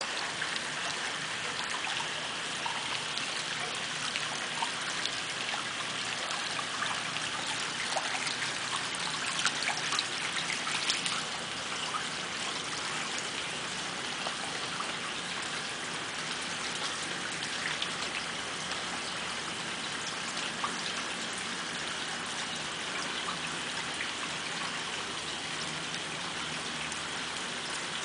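Steady rain falling on a flooded concrete patio and soaked lawn: a constant patter of drops with water trickling, a little louder about ten seconds in.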